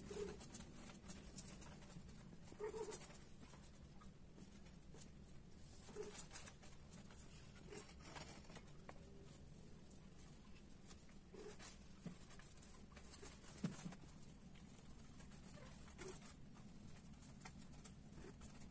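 Domestic cats making short, faint calls every few seconds while mating, over a steady low hum, with one sharper knock in the second half.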